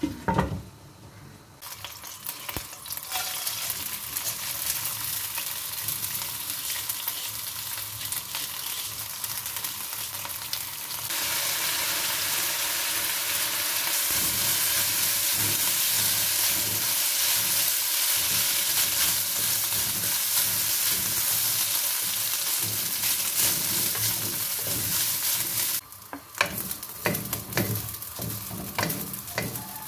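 Raw long-grain rice sizzling as it is stir-fried in a nonstick pan, with a wooden spatula scraping through the grains. The sizzle grows louder about a third of the way in and falls away near the end, leaving separate scrapes of the spatula.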